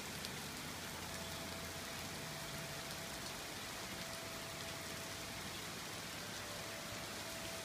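Steady rain shower, an even hiss of falling drops.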